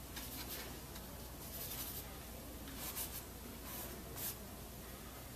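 Paintbrush stroking oil paint onto canvas: a series of short, scratchy swishes, several seconds apart and some close together.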